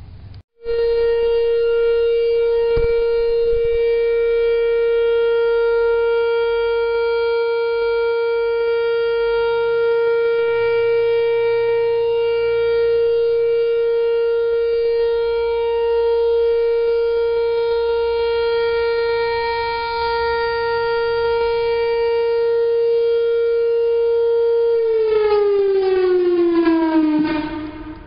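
Whelen 4004 rotating electronic siren sounding its steady alert tone. It starts suddenly, holds one pitch with slight swells in level as the horn turns, then falls in pitch near the end as the signal winds down.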